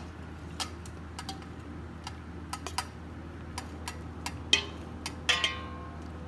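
Wooden spatula knocking and scraping against a metal mixing bowl as boiled macaroni is tipped out into a glass bowl: scattered light clicks, with two louder knocks about four and a half and five and a half seconds in that ring briefly.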